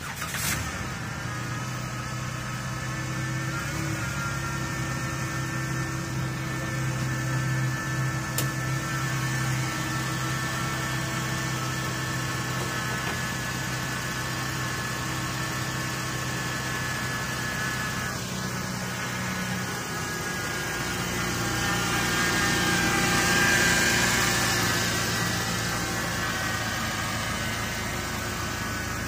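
2010 Jeep Wrangler Unlimited's 3.8-litre V6 idling steadily with an even hum, swelling a little louder for a few seconds past the middle.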